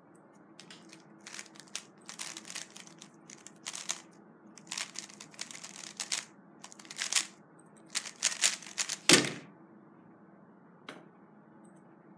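3x3 speedcube being turned fast, in quick bursts of clicking plastic layer turns for about eight seconds. The solve ends in one heavy thump as the cube is put down and the hands come down on the timer pads to stop it.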